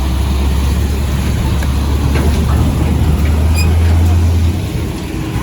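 Road traffic with a heavy vehicle's low, steady engine rumble that drops away about four and a half seconds in.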